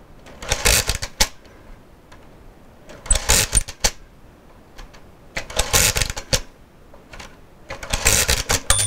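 Busicom HL-21 pinwheel calculator's hand crank turned four times, each turn a short clatter of gears and pinwheels lasting under a second, with faint clicks of the setting levers between the turns. Near the end the machine's bell starts ringing: the sign that the subtraction has gone below zero.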